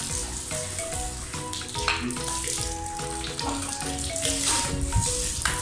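Background music with a steady beat over the hiss of water spraying from a garden hose onto a child and a tiled floor; the hiss swells a few times.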